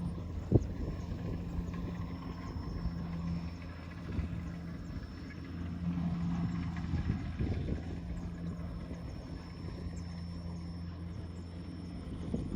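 Kubota rice harvester running steadily with a low engine drone. A single sharp knock comes about half a second in.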